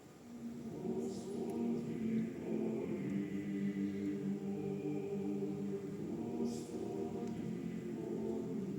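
Men's choir singing sustained chords, coming in softly just after a near-silent pause and swelling within the first second to a full, steady sound centred on the low voices.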